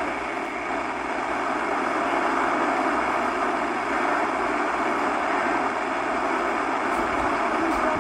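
Steady hiss of radio static from a receiver between broadcasts, even and unchanging throughout.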